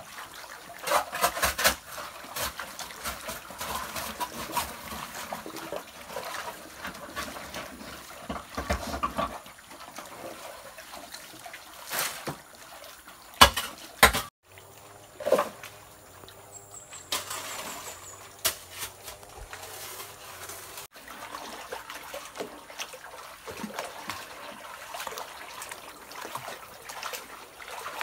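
Muddy water sloshing and trickling as large gold pans are swirled and worked in a flooded pit, with a couple of sharp knocks about halfway through.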